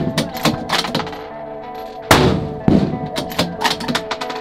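Background music with sustained tones, with sharp rifle shots cracking over it: one right at the start, the loudest about two seconds in, and smaller sharp hits in between.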